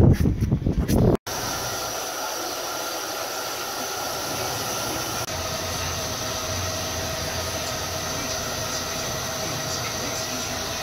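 After about a second of loud low rumble and knocks, a handheld hair dryer runs steadily, a constant rush of air with a faint motor whine, blowing over a dog's coat.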